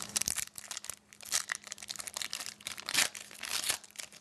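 A foil trading-card pack wrapper being crinkled and torn open, with a string of sharp crackles that fade out near the end.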